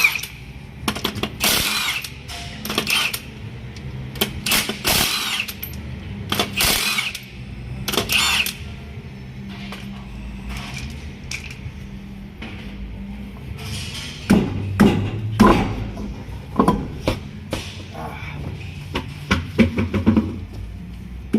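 Workshop tool noise during brake work: a run of short, sharp power-tool bursts, then a cluster of metal knocks and clunks near the end, over a steady low hum.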